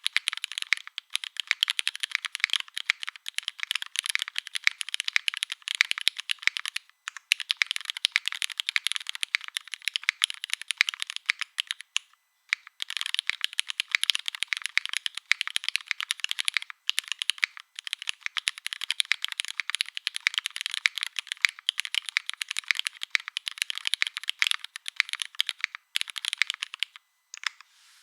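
Fast typing on a custom mechanical keyboard with lubed Cherry MX Black linear switches in an aluminium plate, o-ring mounted, with GMK keycaps: a dense stream of key clacks broken by a few short pauses, stopping shortly before the end.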